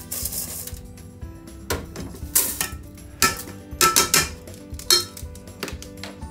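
Stainless mesh strainer knocking and clattering against a rice cooker's inner pot as drained rice is tipped out into it, a string of sharp knocks from about two to five seconds in. Background music plays under it.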